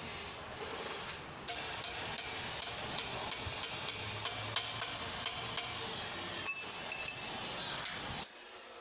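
Mitsubishi L300's 4D56 diesel engine running with the muffler deleted, a steady rough exhaust noise full of irregular metallic clicking and clattering ticks; it cuts off suddenly near the end.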